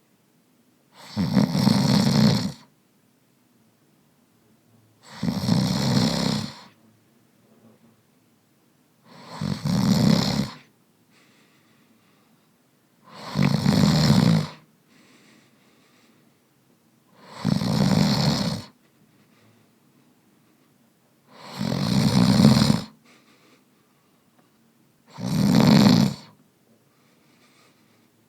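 A man snoring in a slow, even rhythm: seven snores about four seconds apart, each lasting about a second and a half, with quiet gaps between them.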